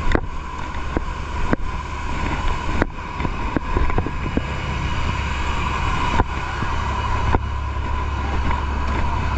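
Fire truck engines running with a steady low rumble, broken by occasional short sharp knocks.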